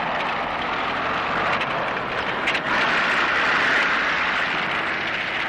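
Film sound effect of a tank moving on its tracks: a steady rushing, clattering noise that swells to its loudest a little past halfway, then eases slightly.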